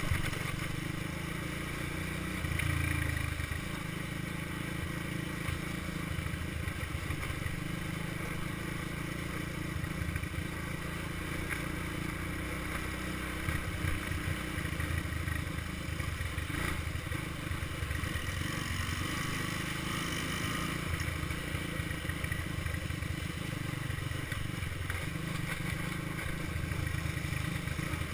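All-terrain vehicle engine running steadily while riding along a dirt road, with rattling over the bumps and wind noise on the microphone.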